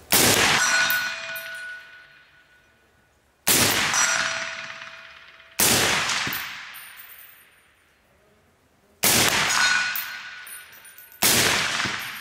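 Five suppressed single shots from an FN SCAR-H rifle with a 13-inch barrel in 7.62×51 mm, fired one at a time about two to three and a half seconds apart. Each sharp report dies away in a ringing echo lasting about two seconds.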